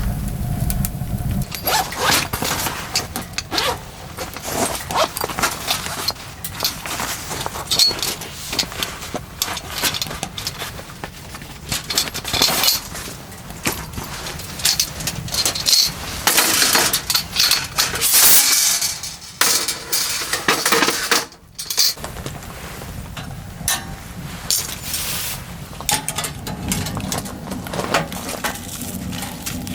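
Irregular clinking and clattering of small hard objects being handled, with many short knocks.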